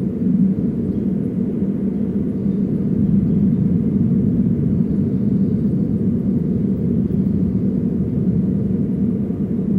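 Steady low rumble of outdoor ambient noise on a nest-camera microphone, with no distinct calls or events standing out.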